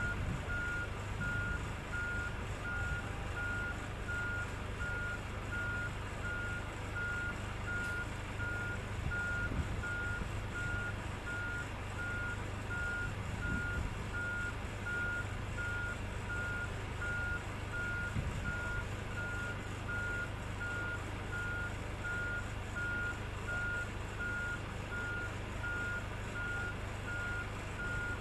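Warning beeper on moving boat-handling machinery: a single high beep repeating evenly about twice a second, over a steady low machine hum.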